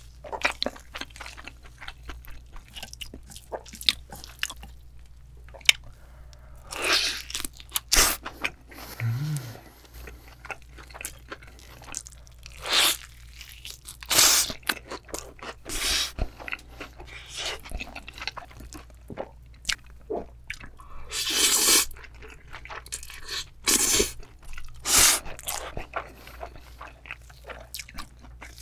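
Close-miked eating: crunchy bites and chewing, in a string of loud bursts between many small wet mouth clicks.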